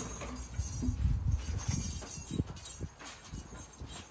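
Irregular soft footsteps and knocks on a tiled patio as a large Presa Canario on a leash shifts and turns about.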